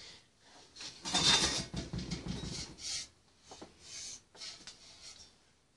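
VAZ-2107 exhaust pipe sections being handled and shifted on the floor, a scraping, rubbing noise that is loudest for about two seconds starting a second in, then softer rustling and knocks.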